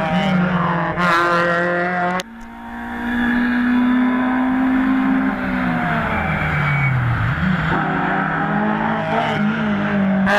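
Hill-climb competition car engine running hard. The engine note cuts off sharply about two seconds in, climbs again, falls steeply as the car slows, then rises once more under throttle.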